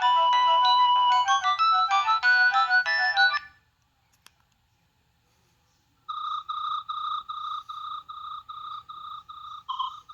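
Preloaded ringtones playing on a Nokia 6610 mobile phone. A polyphonic melody ends about a third of the way in, followed by a single click and a couple of seconds of quiet. Then the next ringtone starts, a chirping beep repeating about three times a second.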